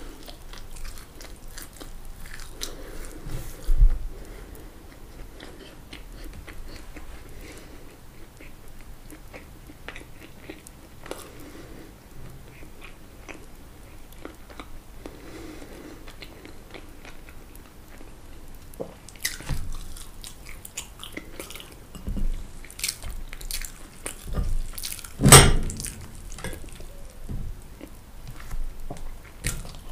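Close-miked eating of fried food: soft, wet chewing for most of the time, with a dull thump about four seconds in. Later come several sharp, crunchy bites, the loudest about two-thirds of the way through.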